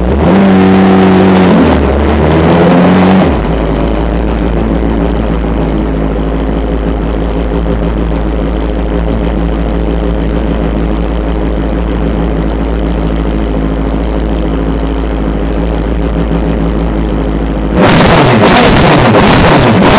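Race car engine heard from inside the cockpit: revved and blipped for about the first three seconds, then idling steadily, then revved up hard and loud near the end, as at a launch from the start line.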